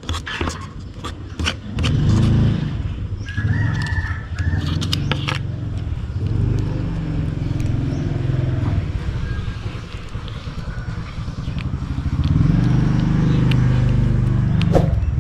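A motor vehicle's engine running, its low rumble swelling about two seconds in and again near the end, with scattered light clicks.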